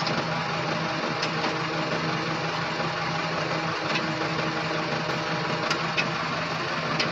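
Diesel engine of a Dynapac road roller idling steadily, with a few faint clicks.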